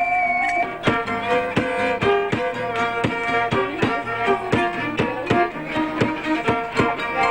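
Instrumental music: a bowed-string melody, fiddle-like, over a steady, evenly spaced beat of sharp strokes.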